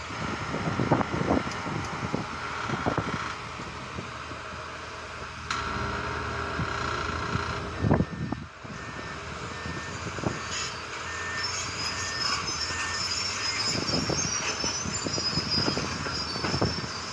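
Heavy construction machinery at work with repeated clanks and knocks. A reversing alarm beeps at a steady pitch, about two beeps a second, through the middle.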